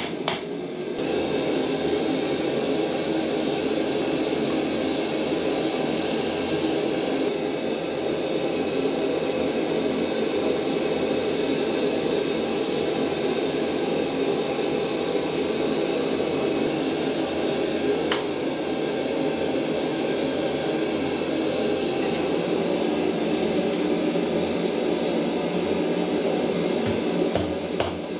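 Forge burner running with a steady, even rushing noise. A few hammer blows on the anvil sound in the first second and again near the end, with a single click about eighteen seconds in.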